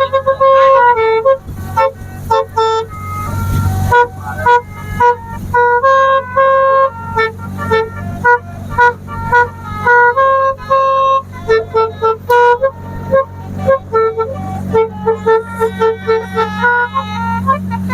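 A 'telolet basuri' multi-tone air horn playing a quick tune of short, stepped notes, over a steady low hum.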